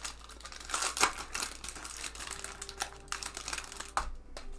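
Foil wrapper of a Topps baseball card pack crinkling and tearing as it is pulled open by hand, in irregular crackles, with a sharper click about four seconds in.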